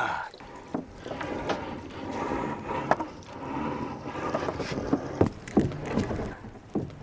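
Boat noise on the water: a steady rushing sound, joined by several sharp knocks and clatters on the boat near the end.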